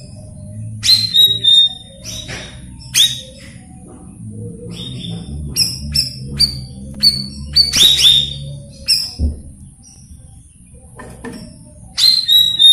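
Cucak rawis (cucak bayeman) singing, a lure call for untrained birds: a rapid, irregular string of sharp chirps and short whistles, several sweeping down in pitch, over a steady high hiss.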